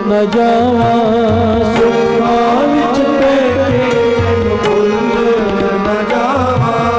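Gurbani kirtan: a male voice sings a wavering, ornamented melodic line over steady held harmonium tones, with tabla playing repeated low strokes underneath.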